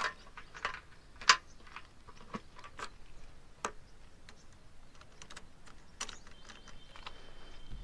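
Light, scattered clicks of a motorcycle's locking fuel-tank cap and its key being worked, closed and the key turned and pulled out, with a sharper click about a second in.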